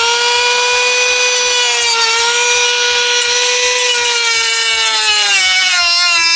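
Small high-speed electric power tool running with a loud, steady whine. The pitch dips slightly about two seconds in, then drops over the last second or so as the tool slows.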